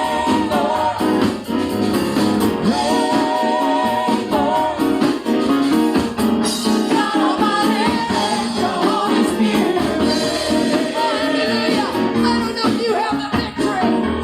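Live gospel praise music: a praise team singing with instrumental backing.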